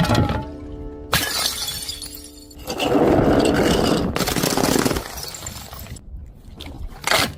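Glass bottles shattering: a sharp crash about a second in, a longer, louder crash of breaking glass from about three to four seconds, and another short crash near the end, over background music.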